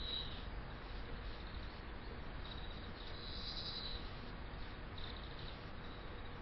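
Faint steady background hiss with a few short, high, insect-like trills: one at the start, a longer one in the middle, and a brief one about five seconds in.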